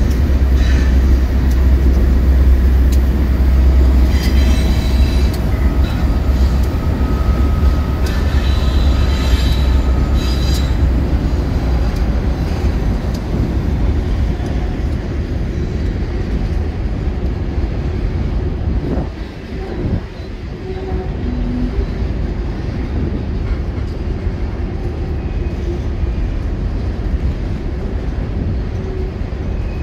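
Freight train crossing a steel trestle overhead. Diesel locomotives pass at the start with a heavy low rumble that fades after several seconds. Loaded covered hopper cars then roll steadily across the steel bridge, with a few thin wheel squeals in the first ten seconds or so.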